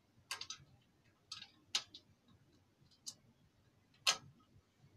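Scattered sharp clicks and taps of metal parts being handled as a foot bracket and butterfly nut are fitted to an oil-filled electric radiator heater; five or six separate clicks, the loudest about four seconds in.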